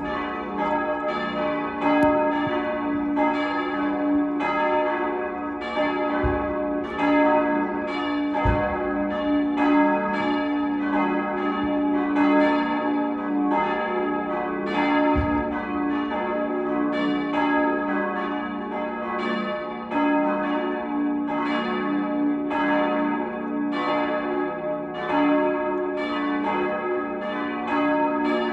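Several church bells ringing together in a full peal, their strikes overlapping several times a second over a steady ringing hum. Three dull low thumps show beneath the bells, at about six, eight and fifteen seconds in.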